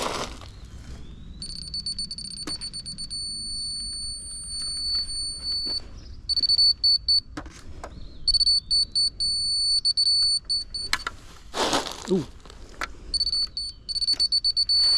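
Electronic beeper with a high, thin tone, most likely a laser-level grade receiver. It beeps rapidly in some stretches and holds a steady unbroken tone in others; a steady tone on such a receiver means it is on grade. A short scuffing noise about twelve seconds in.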